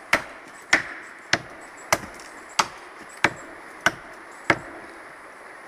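Axe chopping into a standing tree trunk: eight sharp strikes at a steady pace, about three every two seconds, stopping about a second before the end.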